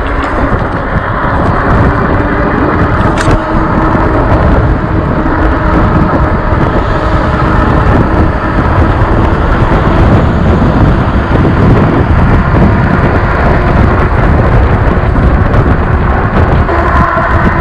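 Riding noise from an Engwe Engine Pro e-bike in motion: steady wind rumble on the microphone and tyre noise, with a faint steady hum. There is a brief click about three seconds in.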